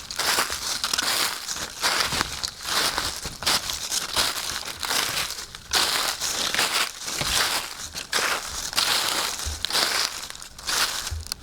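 Footsteps crunching through dry fallen leaves: each step gives a crackling rustle, in a steady walking rhythm.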